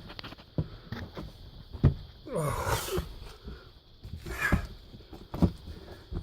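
Scuffing footsteps and knocks on a rock floor as people move through a cramped mine tunnel, with a loud heavy breath that falls in pitch about two and a half seconds in and another breath about four and a half seconds in.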